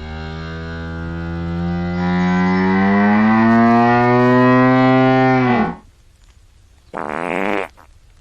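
Hippopotamus giving one long, low, drawn-out bellow that slowly rises in pitch for about six seconds, then a short grunt a little after.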